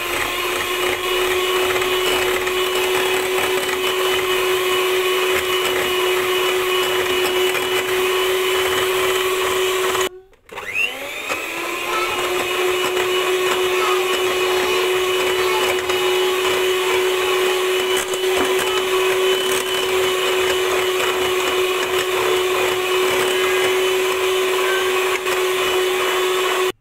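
Electric hand mixer running steadily, its beaters whipping heavy cream with condensed milk in a bowl. It stops briefly about ten seconds in and starts again with a rising whine as it spins up, then cuts off near the end.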